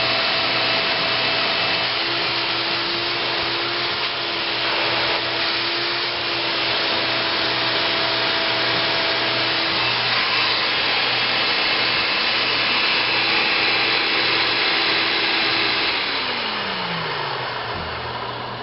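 1971 Hoover Dial-a-Matic (model 1136) vacuum cleaner running steadily with a loud rushing hum. Near the end the sound eases and its pitch falls as the motor slows down.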